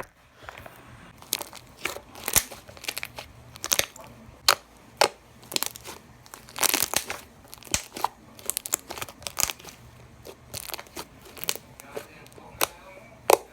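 Butter slime, made glossy with baby oil, being squeezed, pressed and stretched by hand, giving off irregular sticky clicks and pops.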